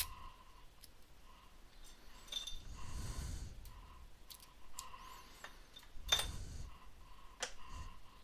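Light clicks and clinks of small tools and parts being handled on an electronics workbench: a few sharp clicks, the loudest about six and seven and a half seconds in, and a brief rustle around three seconds in.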